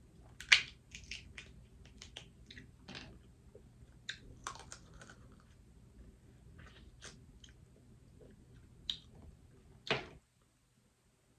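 A person chewing seafood boil close to the microphone: wet mouth smacks and sharp clicks, loudest about half a second in. The sound cuts off suddenly near the end.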